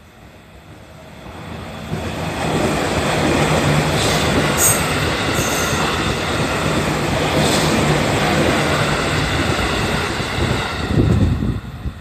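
JR Central 311 series electric multiple unit passing close by: the rumble and clatter of its wheels on the rails build up about two seconds in and stay loud, with two brief high squeals around the middle, then ease off near the end as the train moves away.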